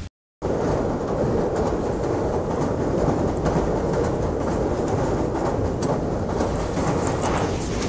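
A passenger train running at speed over a steel girder bridge across a river, heard from inside the coach: a steady noise of wheels on rails. The sound drops out for a moment at the very start, then runs on unbroken.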